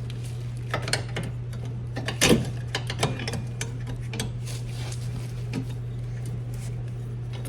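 Scattered sharp clicks and small metallic knocks of hand tools and fittings being handled, the loudest about two seconds in, over a steady low hum.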